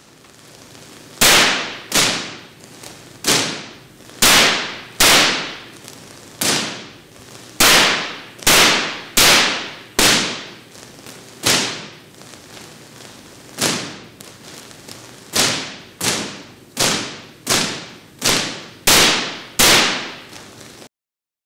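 Loud high-voltage spark discharges from a lightning-pumped nitrogen laser firing repeatedly. About twenty sharp cracks come at irregular gaps of half a second to two seconds, and each rings out for about half a second. They stop abruptly near the end.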